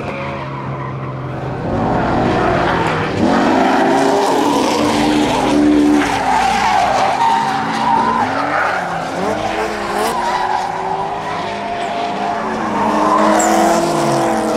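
Drift cars' engines revving up and down as they slide, with tyres squealing continuously underneath; the engine notes rise and fall several times, more than one engine at once in places.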